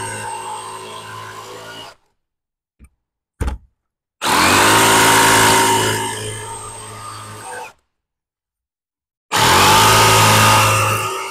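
Cordless jigsaw cutting through the OSB sheathing of a structural insulated panel, running in three stretches that each start at full speed and ease off. The stretches are split by two gaps of dead silence, with a short click in the first gap.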